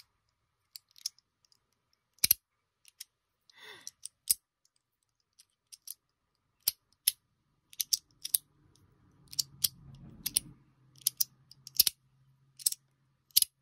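Three-tier magnetic slider fidget toy being slid back and forth, its pieces snapping into place with sharp, irregular clicks, coming more often in the second half.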